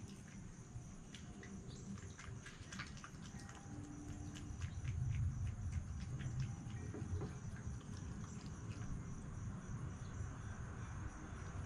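Red fox eating from a bowl, a run of quick clicks and crunches as it chews its lunch of dry cat food and peanuts, thickest in the first half. Insects trill steadily in the background, and a low rumble swells about five seconds in.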